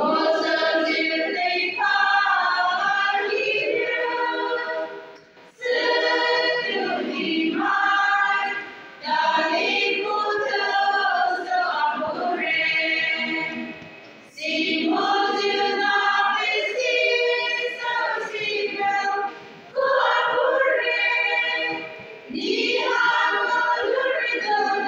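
Women's choir singing together in long phrases, with short breaks between the phrases.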